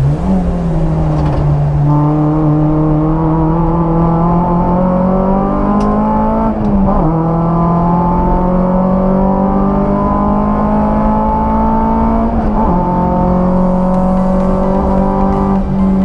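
Renault Clio 172's 2.0-litre four-cylinder engine, heard from inside the cabin, pulling hard under acceleration. The note climbs steadily and drops sharply twice, about six and a half and twelve and a half seconds in, at upshifts.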